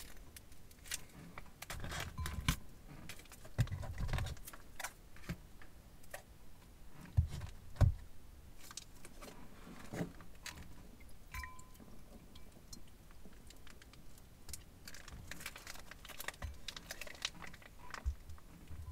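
Plastic piping bag crinkling and rustling in the hands as glue is squeezed out of it into a glass bowl of slime, with many small clicks and a few dull knocks. The loudest knocks come in a pair a little before the middle.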